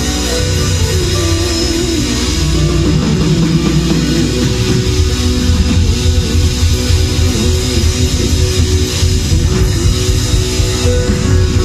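Music led by guitar, with bass and drums in a rock style, growing slightly louder about two seconds in.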